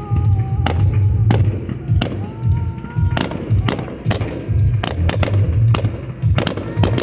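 A fireworks show with aerial shells going off in quick succession: sharp cracks several times a second over deep, continuous booming.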